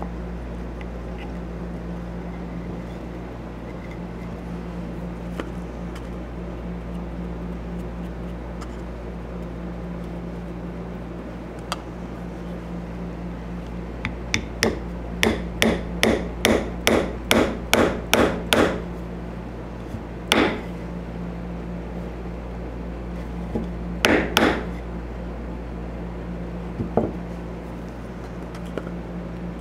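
Small hammer tapping at the workbench: a run of about a dozen quick taps, roughly three a second, starting about halfway through, then a single tap, a quick pair and a last light one, over a steady low hum.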